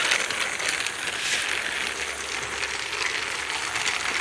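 Battery-powered TrackMaster Wing Thomas toy engine running along plastic track: a steady whirring rattle of its motor and gears with fast, fine clicking from the wheels.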